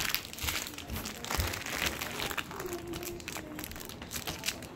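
Rustling, crinkling and scattered clicks from a handheld phone being moved and rubbed close to its microphone.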